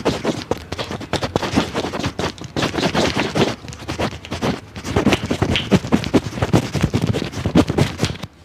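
A barber's hands working quickly over a head and body in a massage: rapid slapping, patting and rubbing strokes on skin and oiled hair, several a second, breaking off abruptly near the end.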